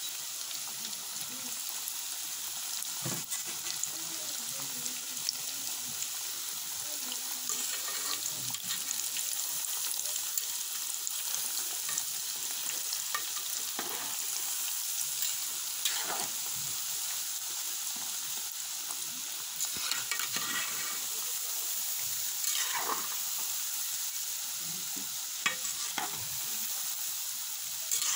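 Pieces of dough for daddies (chin chin) deep-frying in hot oil in a metal pan: a steady sizzle, with a metal spatula knocking and scraping against the pan every few seconds as the pieces are stirred.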